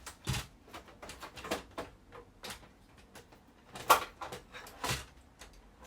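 Crafting tools and materials being handled and set down on a tabletop: a run of light knocks and clicks, about one a second, the loudest about four seconds in.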